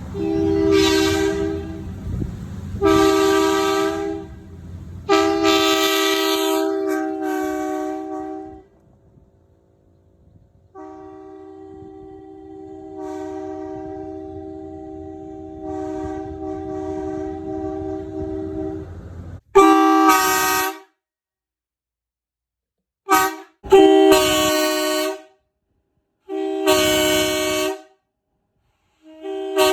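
Sparton D-2355 truck horn sounding a two-note chord in a series of blasts: several blasts in the first eight seconds, then one long, quieter blast of about eight seconds, then short, sharp blasts near the end. A low hum runs under the first part.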